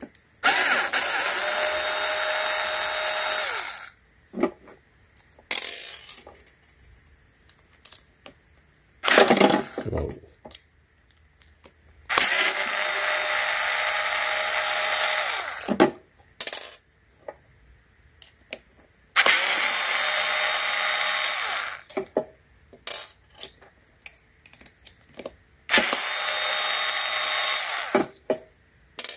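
Cordless drill/driver backing out screws from the aluminium case of an e-bike motor controller, running in four steady bursts of about three seconds each. A short loud clatter falls between the first and second runs, with small handling clicks in between.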